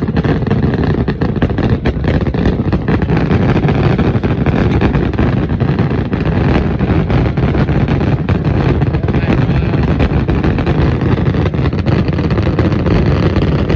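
A dense, continuous fireworks barrage: many rapid bangs and crackles merging into a steady, loud rumble.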